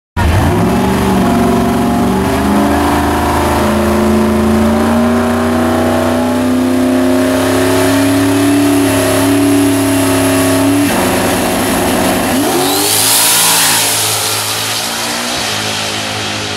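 Fox-body Ford Mustang drag car's engine held at high revs on the starting line, its pitch creeping slowly upward. About eleven seconds in it launches, running up through rising revs as it accelerates away down the strip, and the sound eases off toward the end.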